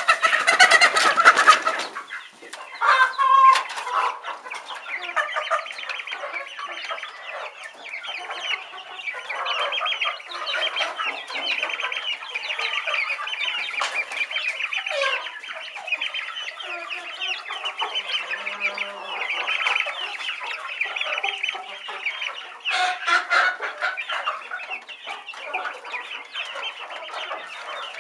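A flock of chickens clucking and chattering continuously, many birds calling at once, with louder outbursts of calls at the start and again at about 23 seconds in.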